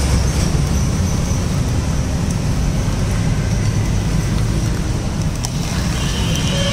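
Steady low rumble of street traffic, with no distinct events standing out.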